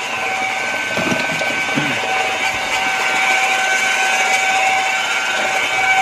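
Small electric motor running with a steady whine at several fixed pitches.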